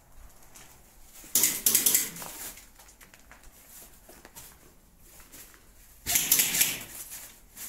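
Airsoft electric guns firing two full-auto bursts, each about a second long: a fast rattle of clicks about a second in and again near the end, echoing off bare brick walls.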